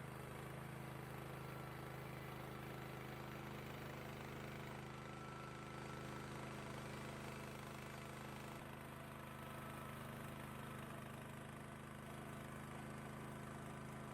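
Engine running steadily and faintly at an even speed, a low drone with no change in pitch.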